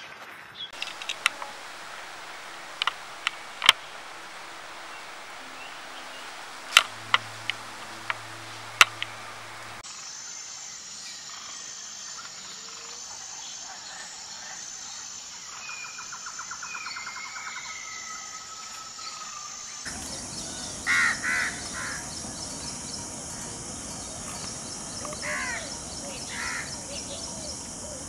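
Outdoor bird ambience that changes abruptly twice. First comes a string of sharp clicks. Next, bird chirps, gliding calls and a short trill sound over a steady high tone. Last, several louder bird calls sound over a low rushing noise.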